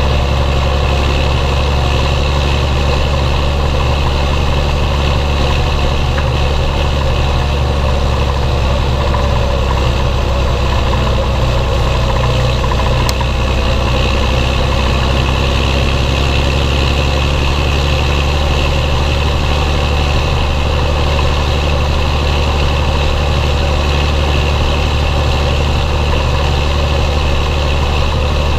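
Belarus 1221.3 tractor's diesel engine running steadily and loud, with no change in pitch.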